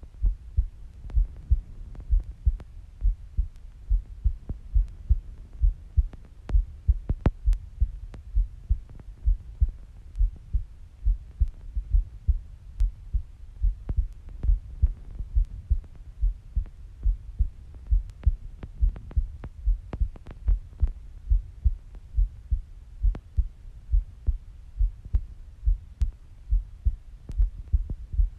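A woman's heartbeat: a steady, even rhythm of paired low thumps, the lub-dub of the heart, with a few light clicks over it.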